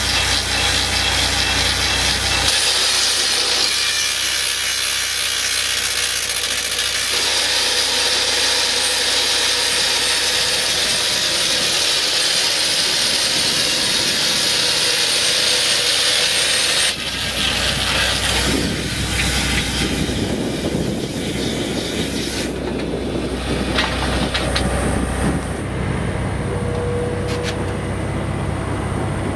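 Excavator-mounted rock drill boring into a stone boulder, with a loud steady hiss of air flushing dust out of the hole. A little past halfway the hiss cuts off abruptly, leaving the excavator's engine running as a lower rumble.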